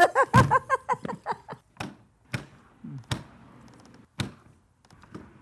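A motorhome's entry door being swung shut and latched: four sharp knocks and clicks spread over a few seconds. A short, loud burst of voice comes just before them.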